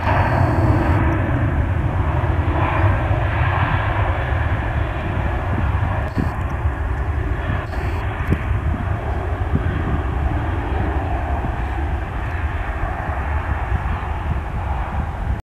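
Boeing 737-800's CFM56 jet engines at takeoff thrust as the airliner rolls down the runway, heard as a steady loud rumble and roar.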